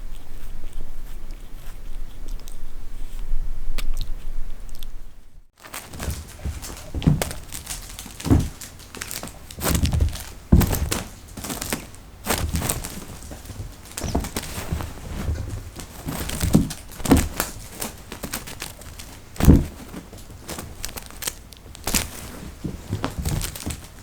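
Cats playing and scuffling: irregular thumps of paws and bodies landing on the floor, mixed with rustling. These come after a few seconds of steady low hum that stops abruptly.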